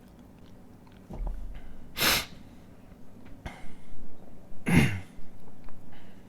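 A man sneezing, the sneeze brought on by tickling the inside of his nostril with a stiff paper tag. There are two loud bursts about three seconds apart, the second starting with a voiced cry, with quick breaths between them.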